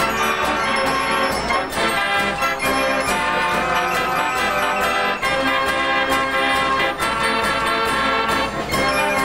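Fairground organ playing a tune with a steady beat.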